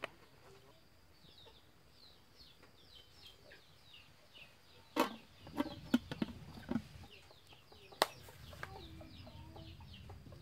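An aluminium lid clatters against a metal cooking pot several times about halfway through, followed by one sharp knock. Throughout, chickens cluck, with a run of quick, high, falling chirps.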